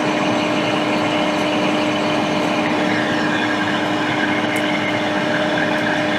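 Hot air rework station blowing: a steady airy hiss over a constant low hum from its fan.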